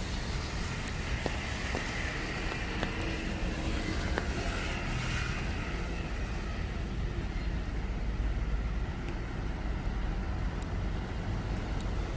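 Traffic on a wet city street: car tyres hissing on the wet road over a steady low rumble, with a few faint ticks.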